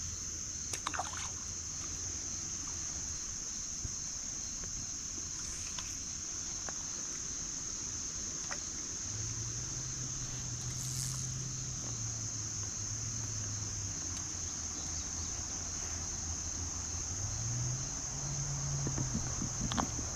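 A steady high-pitched chorus of crickets over a soft hiss of creek water. From about halfway through, a low drone rises and falls underneath.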